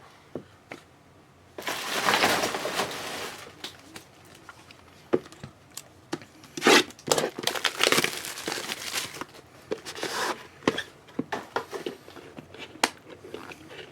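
Plastic card packaging being crinkled and torn open by hand, in several noisy bursts (the longest about two seconds in), with small clicks and taps of cards and packaging being handled in between.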